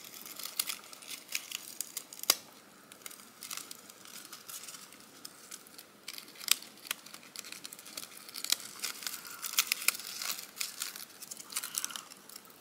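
Thin gold-foil lace netting crinkling and crackling as it is gently unfolded by hand: a run of many small, sharp crackles, with one louder snap about two seconds in.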